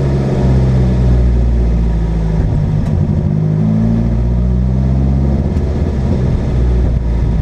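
Car engine running with a deep rumble, its pitch dipping and then climbing again about two to four seconds in.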